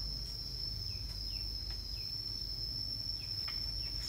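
Insects droning steadily at one high pitch, with a few faint short chirps over a low rumble.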